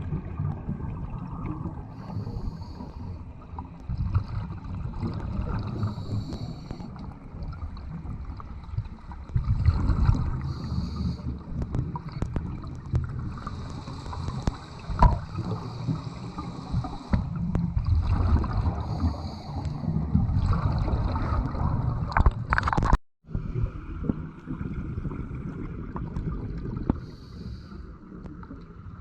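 Scuba diver breathing through a regulator underwater: short hisses on the inhales and low bubbling from the exhaled air, recurring every few seconds. The sound drops out for an instant late on.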